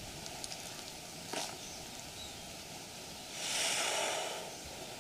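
Quiet outdoor background with a faint knock about a second and a half in, then a soft rustling hiss that swells and fades over about a second.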